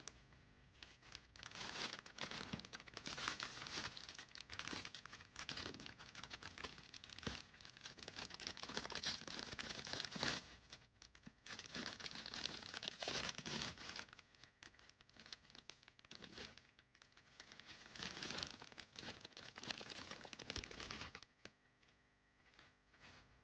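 Plastic packaging crinkling and tearing in repeated handfuls as a blind box is opened and its doll unwrapped, stopping about two seconds before the end.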